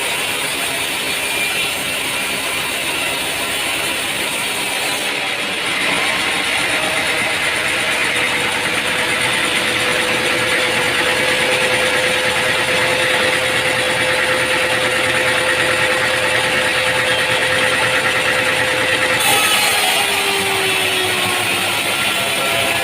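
Sawmill machinery running with a steady mechanical noise. A faint steady tone comes in about ten seconds in and is followed near the end by a tone falling in pitch.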